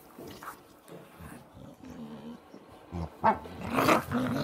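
Dogs play-growling as they wrestle: soft grumbles, then two loud, rough growls a little after three seconds in.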